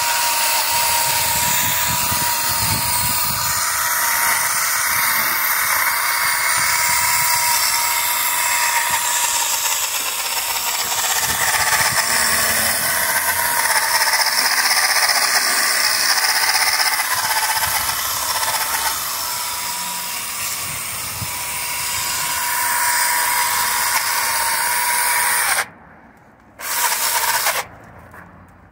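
Cordless electric mini chainsaw running with a steady high whine as it cuts through ivy stems. It stops about 26 seconds in, then runs again in two short bursts near the end.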